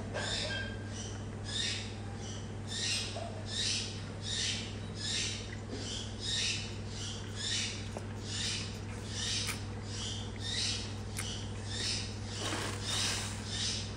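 A baby macaque sucking milk from a bottle's teat: rhythmic wet sucking and slurping, about two pulls a second, over a steady low hum.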